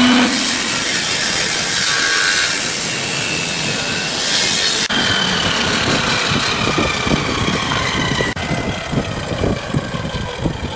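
Table saw running, its circular blade sawing through a glued-up end-grain wooden board, with wood knocking on the saw table. The saw noise starts suddenly and breaks off abruptly twice.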